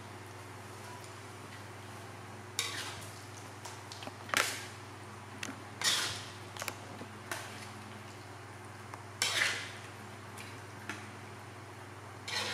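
Metal spatula scraping and clinking against a metal wok and serving dish as stir-fried fish is scooped out, about five short scrapes a second or two apart with a few light clinks between, over a low steady hum.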